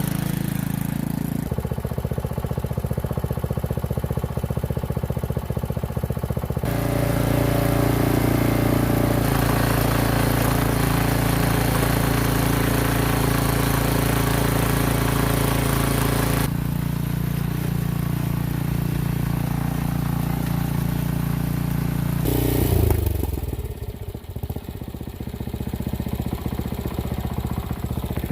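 Garden tiller's Briggs & Stratton 5-horsepower single-cylinder engine running steadily while tilling soil. Its note shifts suddenly several times, then drops lower and quieter near the end.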